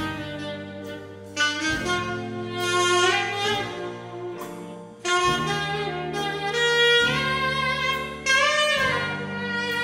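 Big band jazz with a saxophone solo played over the band's backing. The sax plays in phrases, and the low backing chords change about every three seconds.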